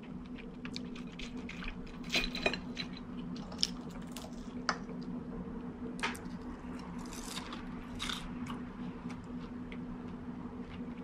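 Someone eating with a fork: light clicks and scrapes of the fork against the dish and container, with chewing, over a steady low hum.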